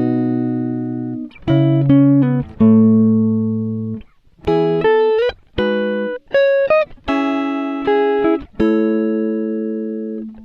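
Background music: a guitar playing slow, ringing chords and single notes, each left to fade, with a few notes sliding up in pitch.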